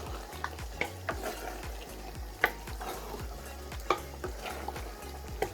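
A spoon stirring egusi soup in a pot, with about six sharp clinks of the spoon against the pot at uneven intervals.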